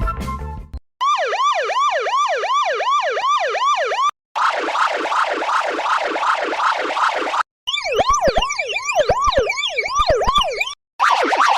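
Police car siren in a fast rising-and-falling wail, about three sweeps a second, played as a run of roughly three-second altered versions with short silent breaks between. The versions are a clean one, a noisy distorted one, one with overlapping doubled sweeps and low clicks, and another distorted one starting near the end. A moment of music fades out at the start.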